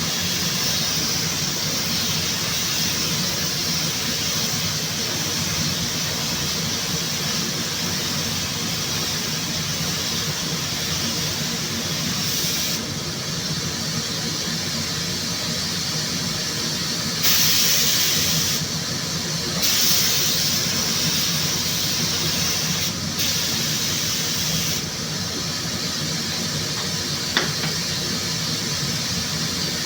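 Compressed-air paint spray gun hissing as it lays on Sikkens clear coat, with a steady hum from the booth's air system under it. The hiss cuts out and starts again several times as the trigger is released and pulled, louder for a second or so just past the middle.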